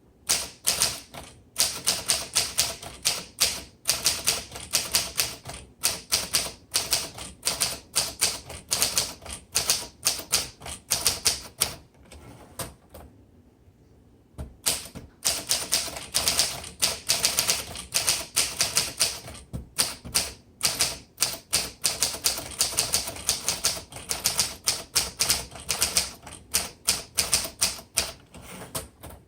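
1941 Corona Sterling portable manual typewriter being typed on quickly: a fast, steady run of key strikes, with a pause of about two seconds around the middle.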